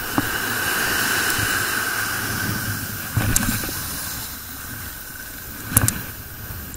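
Ocean surf washing up a sandy beach: a steady rushing hiss that swells and eases, with a few sharp knocks, the loudest near the end.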